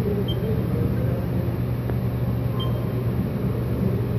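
Haas CNC vertical milling machine running, a steady low hum, with two short high beeps, one near the start and one past the middle.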